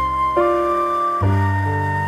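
Slow, soft instrumental background music: a melody of long held notes over sustained chords, the notes changing about once a second.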